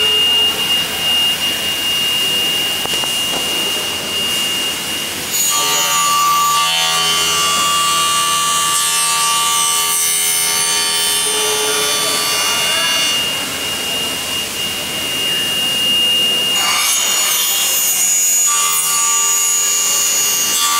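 Promax Falcon CNC aluminium machining centre's spindle-mounted disc cutter notching an aluminium profile at 45 degrees. The spindle first whines with a steady high tone; about five seconds in, the noise of the cutter biting into the aluminium starts, eases off for a few seconds, then starts again.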